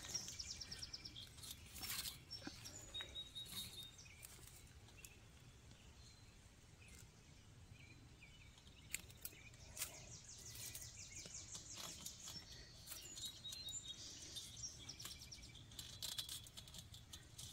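Faint outdoor ambience with small birds chirping and trilling in the distance. A few sharp clicks and rustles come as tomato plants are handled and pruned with hand snips.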